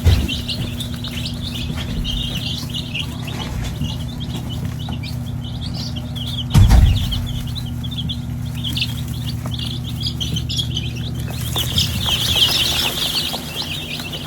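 A brood of week-old chicks, Whiting True Blues and Buff Orpingtons, peeping continuously, with the peeping busiest near the end. A steady low hum runs underneath, and there are two dull bumps, one at the start and one about halfway through.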